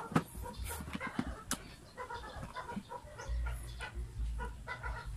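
Metal parts of an electric planer clicking and knocking while it is taken apart by hand, with dull handling thumps.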